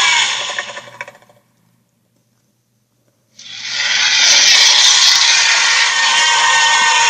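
A loud, harsh, grating creature sound effect. It fades away over about a second, then after about two seconds of silence a second one starts abruptly and keeps going.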